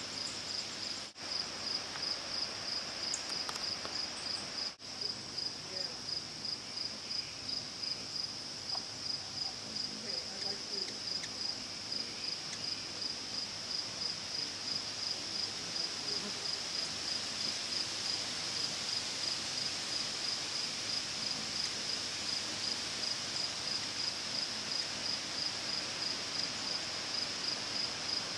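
A cricket chirping steadily, about two high chirps a second, over a constant outdoor hiss.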